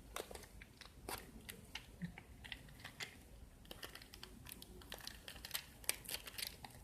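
Plastic parts of a GoPro suction-cup car mount being handled, giving irregular light clicks and crinkles.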